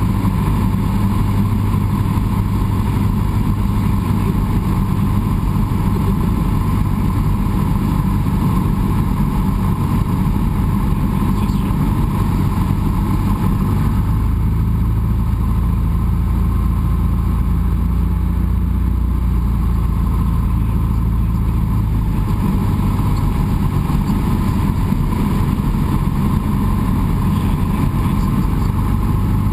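Cessna 172's piston engine and propeller droning steadily in flight on approach to land. The low part of the drone shifts for several seconds about halfway through.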